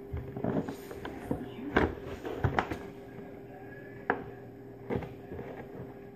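Cardboard product box being handled and opened with a knife: a few scattered knocks and scrapes, over a faint steady hum.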